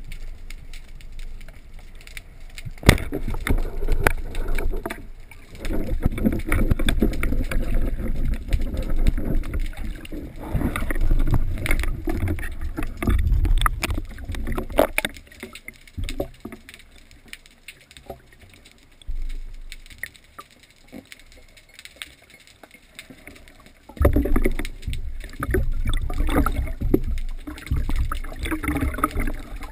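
Seawater sloshing and splashing around a camera on a speargun at the sea surface, in noisy surges with a quieter spell around the middle.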